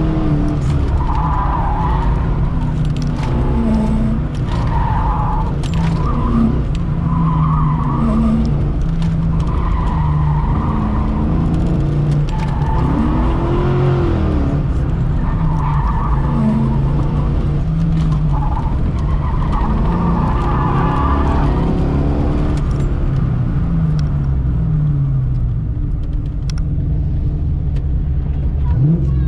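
1990 Fox-body Mustang's 5.0 V8 running hard, heard from inside the car, with the tires squealing briefly every second or two as it turns through an autocross cone course. In the last several seconds the tire squeal stops and the engine note falls and then rises again.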